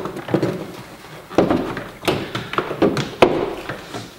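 Plastic cabin-filter housing cover being handled and fitted into place, giving irregular knocks and taps of plastic on plastic, with several sharp knocks in the second half.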